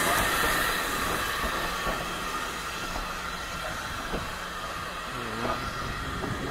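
Steam hiss from a Peckett 0-4-0 tank locomotive, fading away, while its coaches roll slowly along the track with a few scattered clicks and knocks from the wheels.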